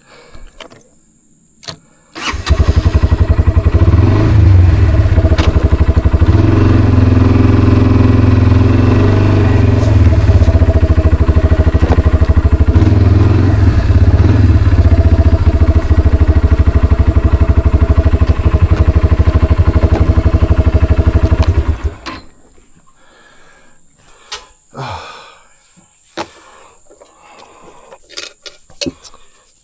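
Kawasaki Brute Force 300 ATV's single-cylinder engine coming in suddenly a couple of seconds in, running loudly with its revs rising and falling a few times, then cutting off about twenty seconds later.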